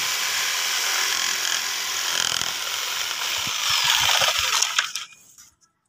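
Electric jigsaw running and sawing through plywood with a steady buzz. It gets louder near the end, then stops about five seconds in.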